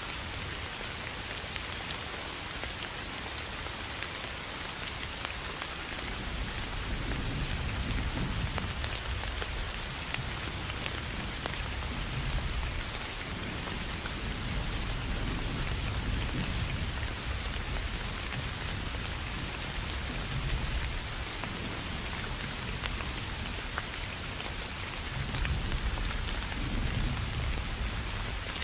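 Steady rain hiss with low, rolling thunder that comes in about six seconds in and swells and fades several times.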